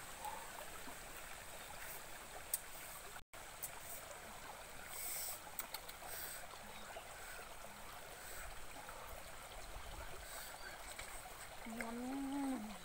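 Steady burble of a shallow stream running over rocks. Near the end comes a woman's short hummed "mm" with a rising and falling pitch.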